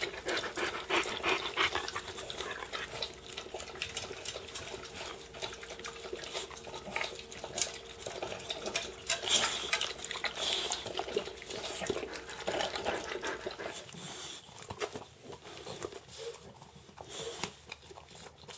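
Dog lapping coconut juice from a stainless steel bowl: quick, irregular wet laps that thin out over the last few seconds.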